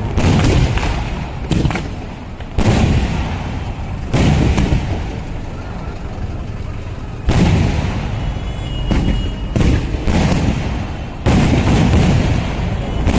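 Traditional Kerala temple fireworks exploding in a rapid series of loud booms, about ten in thirteen seconds. Each blast is followed by a long rumbling echo that overlaps the next one.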